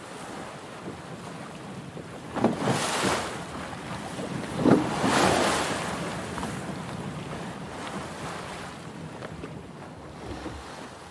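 Choppy sea and wind, with two louder rushes of splashing water about two and a half and five seconds in.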